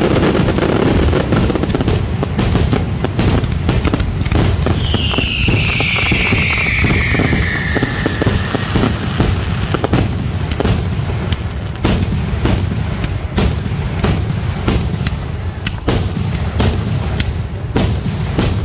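Fireworks aerial shells bursting in a dense, continuous barrage of bangs, one after another with almost no gap. About five seconds in, a whistle sliding down in pitch runs for three or four seconds over the bangs.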